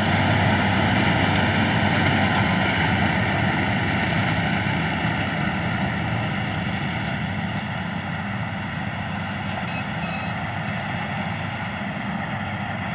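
Wheat combine harvester engine running steadily, slowly growing quieter.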